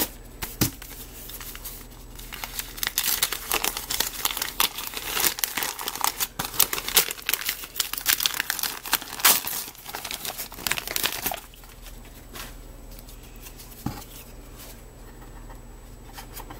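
Patterned gift-wrapping paper being torn and crumpled by hand as a board book is unwrapped: a dense run of ripping and crackling that stops about two-thirds of the way through, followed by a quieter stretch with one light knock.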